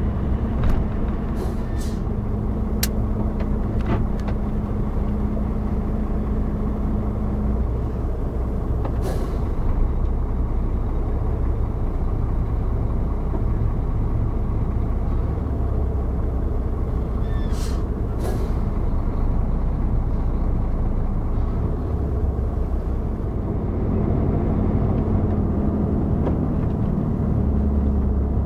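A vehicle's engine and tyres running steadily on a snowy road, heard from inside the cab as a low drone with a steady hum that fades out about a third of the way in and comes back near the end. A few short sharp hisses or clicks break in now and then.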